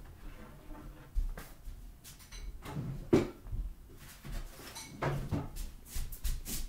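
Scattered household knocks and clunks, with the loudest thump about three seconds in.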